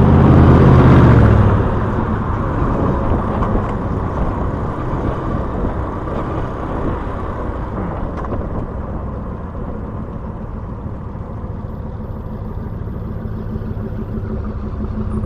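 Vehicle engine revved loudly for about a second and a half, then left running at a steady, slightly uneven idle with a rattling 'kır kır kır' note.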